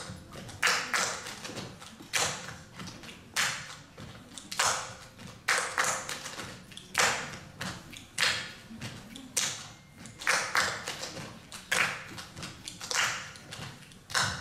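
A group of children clapping and tapping a rhythm together with their hands, about two strokes a second in a repeating pattern, some short and sharp, some with a longer hiss.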